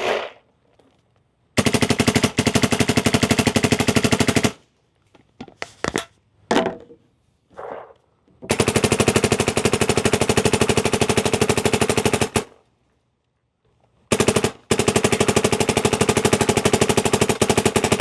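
Dye MXR electronic paintball marker firing in ramping mode: three long rapid-fire strings of shots, each lasting about three to four seconds, with short pauses between them.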